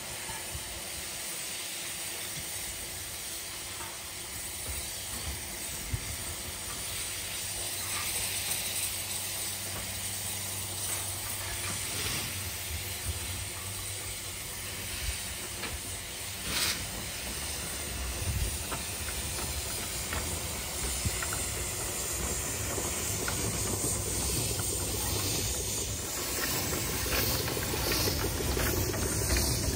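Narrow-gauge steam locomotive letting off a steady hiss of steam, with occasional sharp clicks and knocks. A low rumble builds near the end as the engine moves off.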